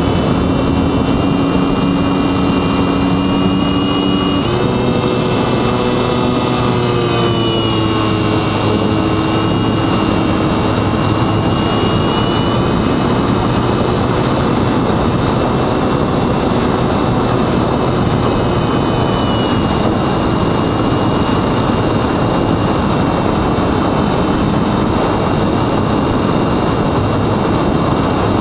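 Sunnysky X2220 brushless motor and 9x7.5 propeller of a small FPV flying wing whining in flight, heard from the onboard camera over heavy wind rush. The whine jumps up in pitch about four seconds in, then slides back down a few seconds later and runs on steadily.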